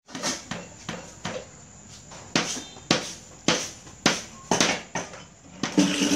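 A series of sharp knocks on wood, about one every half second, with a short pause around two seconds in.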